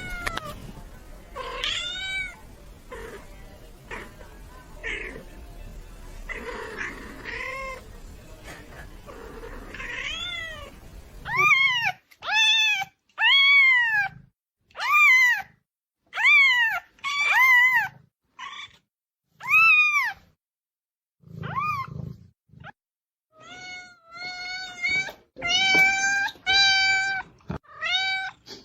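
Cat meowing. First a few faint meows over background noise; then, after an abrupt change about a third of the way in, a clean run of loud, repeated meows, each rising and falling in pitch, roughly one a second, ending in a few flatter, held calls.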